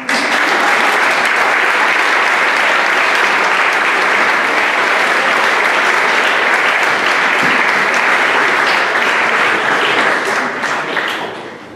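Audience applauding, breaking out all at once and dying away near the end.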